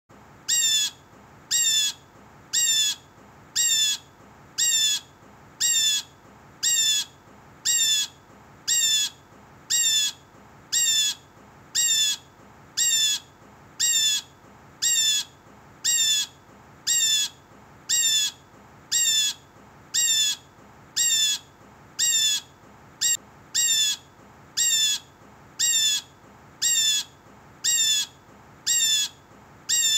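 Blue jay giving its harsh 'jay' call, repeated evenly about once a second with short gaps between calls.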